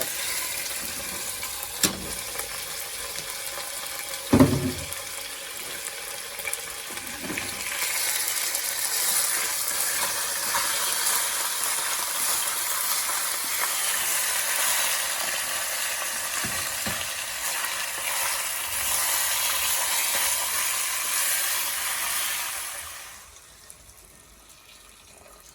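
Mutton sizzling as it browns in a pressure cooker pot, a steady hiss of frying meat, with a clunk of a utensil or pot about two seconds in and a louder one a couple of seconds later. The sizzle cuts off about 23 seconds in.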